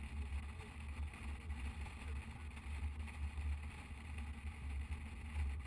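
Motorcycle riding along at steady speed: a low, even engine drone with road noise.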